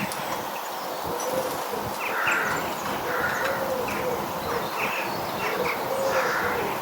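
Garden birds chirping at a feeder, with a pigeon cooing low and repeatedly throughout.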